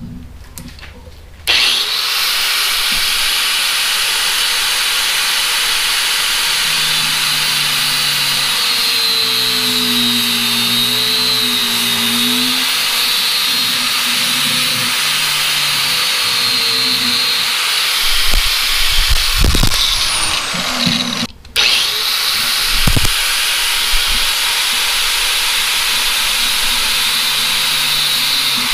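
Angle grinder cutting through a steel-braided AN oil hose wrapped in electrical tape: a loud, steady grinding hiss with a high whine. It starts about a second and a half in, breaks off for a moment about two-thirds of the way through, then carries on.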